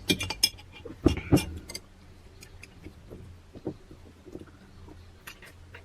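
Eating sounds at a table: a cluster of sharp clicks and taps of tableware in the first two seconds, then scattered faint clicks and mouth sounds as kimchi dumplings are eaten, over a low steady hum.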